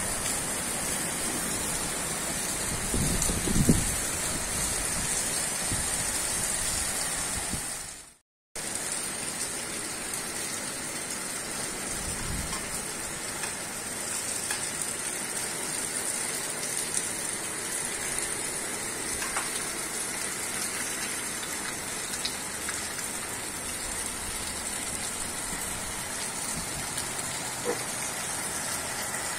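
Steady rain from a tropical storm falling on a paved street and rooftops, an even wash of rain noise, with brief low rumbles a few seconds in and again around twelve seconds. The sound cuts out for a moment about eight seconds in.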